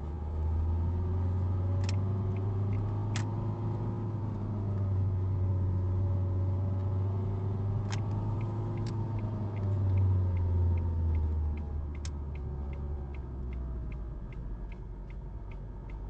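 Car interior while driving: engine and road noise as a steady low hum, with the engine's pitch drifting up and down as the speed changes. A few sharp clicks come through, and a fast regular ticking sets in over the last few seconds.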